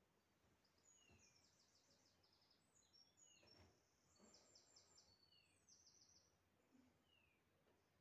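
Faint birdsong over near-silent room tone: several rapid high trills and a few short falling whistles, with a couple of soft thuds.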